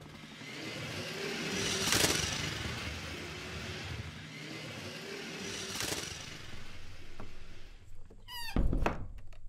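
Cartoon sound effects of toy vehicles driving, with a steady motor noise and two whooshes. Near the end come a quick run of chirps and a loud thud.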